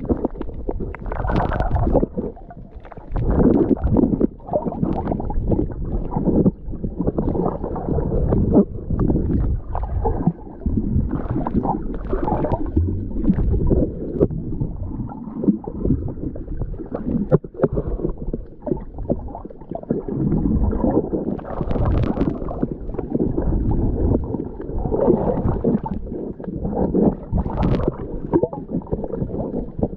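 Muffled underwater sloshing and gurgling of water around a submerged camera, rising and falling irregularly, with a few sharper splashes now and then.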